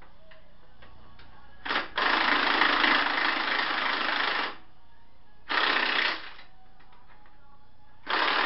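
A power tool running in short bursts of rapid chattering, each starting and stopping abruptly: a brief burst, one of about two and a half seconds, a shorter one, and another that starts near the end.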